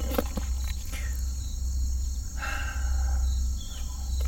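Insects trilling steadily over a low rumble, with a few handling clicks near the start and a burst of rustling about halfway through.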